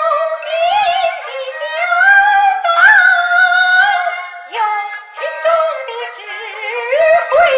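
Peking opera music: a high, wavering, ornamented melodic line with sharp percussion strokes now and then.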